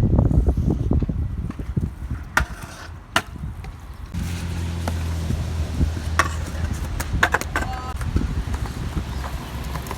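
Small hard wheels of a skateboard or scooter rolling over wet pavement with a low rumble, broken by sharp clacks of a deck or board striking the ground: two near the start, then several more in the second half, one with a brief metallic ring.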